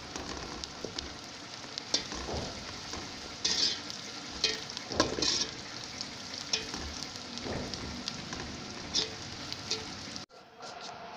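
Sliced onions sizzling in hot oil in a metal pot, stirred with a slotted metal spoon that scrapes and clinks against the pot now and then. The sizzle drops away suddenly near the end.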